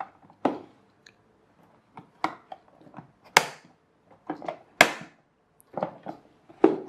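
Plastic toolbox being handled: a string of irregular sharp clacks and knocks, the two loudest about halfway through.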